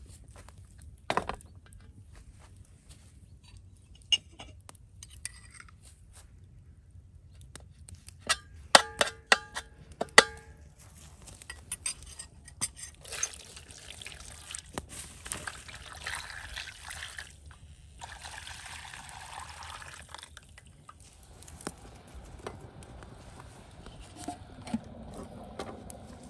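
Several ringing metal clangs about nine to ten seconds in, then a thin red sauce poured from a bowl into a large metal cooking pan of stuffed peppers and potatoes, in two pours of a few seconds each.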